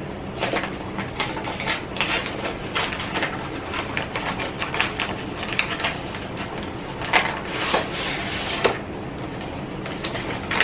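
A cardboard cake-mix box being opened and its paper-and-plastic inner bag pulled out, with a continuous irregular rustling and crinkling, over a faint steady low hum.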